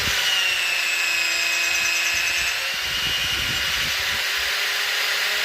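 Electric drill running steadily, a high whine over a rushing noise.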